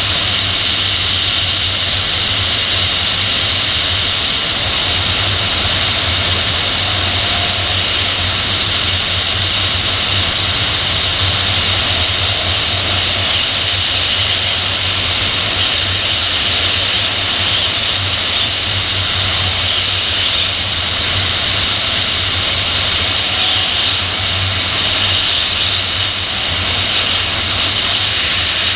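Steady rush of airflow over a PIK-20 sailplane in gliding flight, heard as wind noise on a camera mounted on the glider's tail. It is an even hiss, strongest in the upper range, over a low hum, and does not change.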